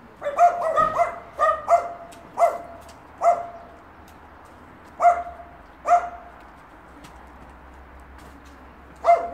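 Small dog barking in short, sharp barks: a quick run of them, then single barks spaced out, and one more after a pause of about three seconds near the end.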